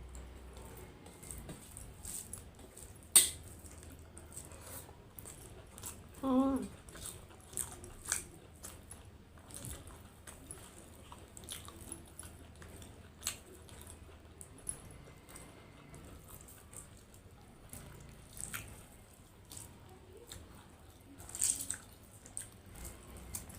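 Close-up eating sounds: scattered lip smacks and clicks of chewing, with a sharp click about three seconds in. A short wavering vocal sound comes about six seconds in.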